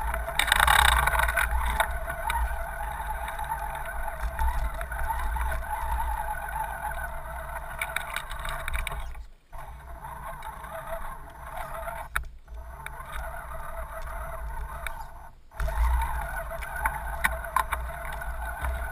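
Axial SCX10 RC crawler's electric motor and gear drivetrain whining steadily as the truck drives through water and wet leaf litter, heard close from a camera on the truck, with a splash about a second in. The whine cuts out briefly three times from about halfway on.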